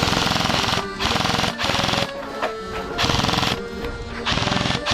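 Airsoft gun firing on full auto in four short bursts of rapid clicking shots, over background music.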